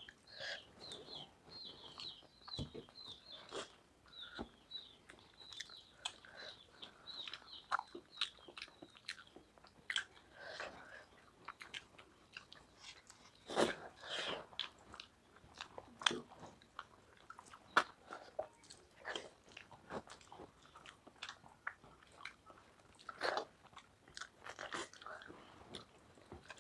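Close-up eating sounds of rice and fish curry eaten by hand: chewing, mouth smacks and fingers working the food on steel plates, as irregular short clicks throughout. A bird chirps over and over in roughly the first nine seconds.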